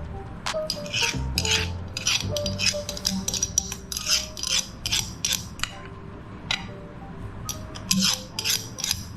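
Slime crackling and popping with irregular sharp clicks as it is worked through a meat grinder, over quiet background music.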